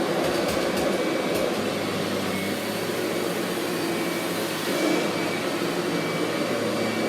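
Kirby upright vacuum cleaner running steadily at full power: an even motor and fan noise with a low hum.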